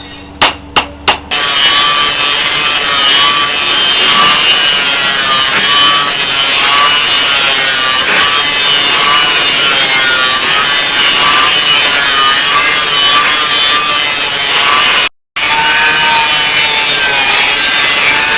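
A few quick hammer blows on the knife steel, then a power grinder pressed against the blade, running loud and continuous with a slightly wavering pitch. The sound cuts out for about half a second near the end.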